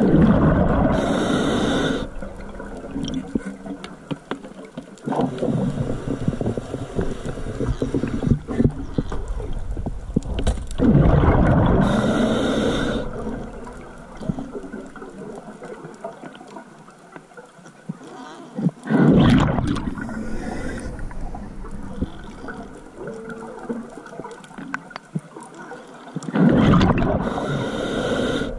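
Underwater breathing through a scuba regulator: bursts of bubbling, gurgling rush with a short hiss, recurring four times roughly every eight seconds, with low water noise between.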